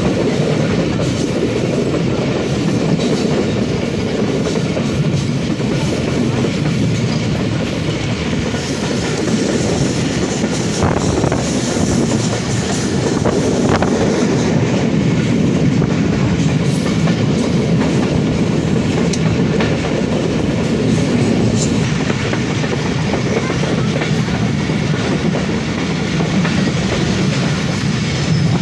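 Passenger train coach running along the track, heard from an open window: a steady rumble of wheels on the rails.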